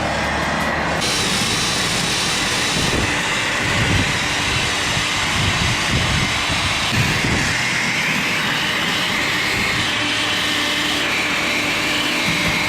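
Steady loud machine noise with a high whine that wavers slightly in pitch.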